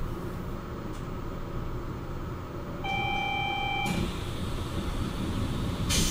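Low steady hum of an automated Port Liner train standing at a station platform. About three seconds in, a steady electronic beep sounds for about a second, fitting the door-closing warning before departure. Just before the end comes a short, sharp burst of hiss.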